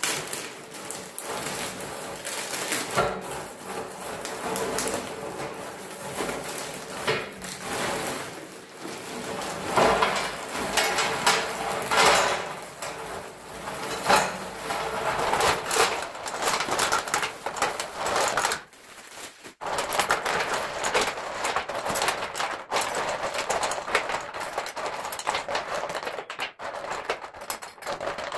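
Lava rocks poured from plastic bags into the steel burner pan of a propane fire pit table, clattering and rattling against the metal and each other in a dense stream, with the plastic bag crinkling. Near the end the rocks are shuffled and spread by hand.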